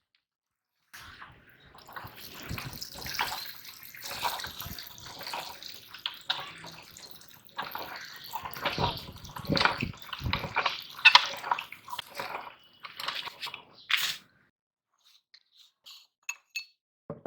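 Meat grinder crushing Orbeez water beads: wet squelching full of crackling pops. It starts about a second in and stops about fourteen seconds in, followed by a few faint ticks.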